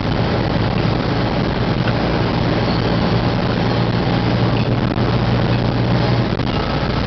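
Car driving through a road tunnel, heard from inside the cabin: steady engine and tyre noise with a low hum that eases about six seconds in.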